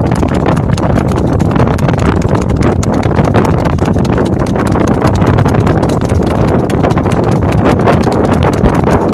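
Mangalarga horse's hooves striking asphalt in its esquipado gait, a rapid, even clip-clop without a break.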